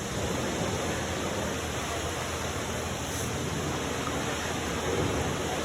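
Fresh motor oil pouring from a bottle into an engine's oil filler neck, a steady rush of liquid that holds throughout.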